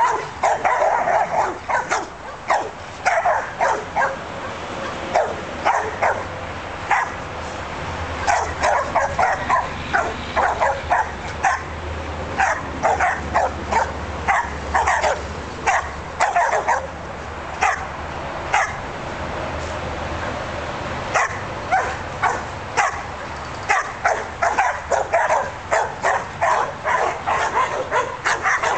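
Several Australian Shepherds barking in quick, repeated volleys, with a brief lull a little past the middle before the barking picks up again.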